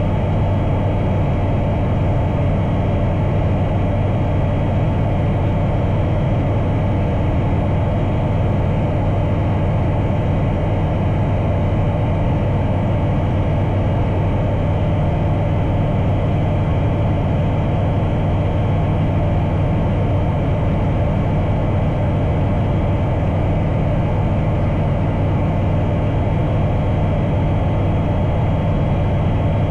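Bristell Classic light aircraft's engine and propeller in cruise flight, a steady, unchanging drone with a strong low hum.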